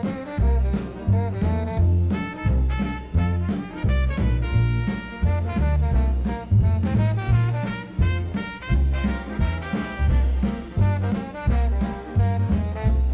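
Swing dance-band music, an instrumental passage with brass and saxophones over a steady bass beat.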